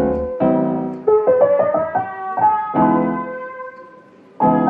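Background music: a gentle piano melody over held chords, dying away about four seconds in before a new chord comes in.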